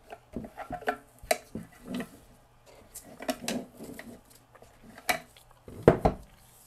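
Clicks, rattles and rustles of hands unplugging wire-harness connectors from a powered speaker's amplifier board and drawing the cables out through the plastic cabinet, with one heavier knock near the end.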